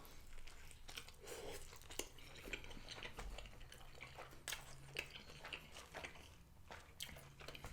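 Quiet close-up chewing of a steak and cheese grinder sandwich, with scattered small wet clicks and smacks of the mouth.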